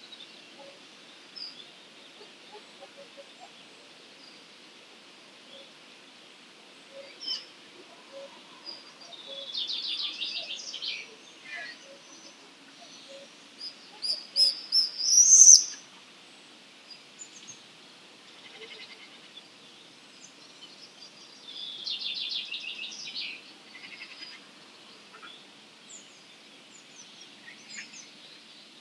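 Several wild songbirds singing and calling over a faint steady background. A buzzy, fast-trilled phrase comes about ten seconds in and again about twenty-two seconds in. The loudest moment is a quick run of sharp, high notes about fourteen to fifteen seconds in.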